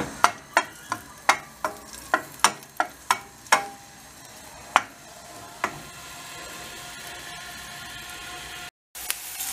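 Chopped hot green peppers sizzling in oil in a stainless steel frying pan, stirred with a wooden spoon that knocks against the pan about three times a second for the first few seconds. After that the sizzle goes on steadily with only an odd knock, and the sound cuts out for a moment near the end.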